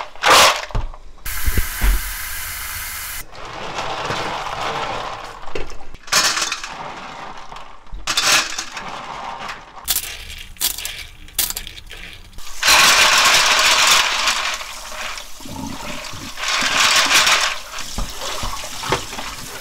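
Cockle shells clattering and clinking against each other, the plastic basin and a stainless-steel colander as they are stirred and tipped, in bursts of sharp clicks and rattles. Water sloshes and splashes throughout, and a running kitchen tap is heard near the end.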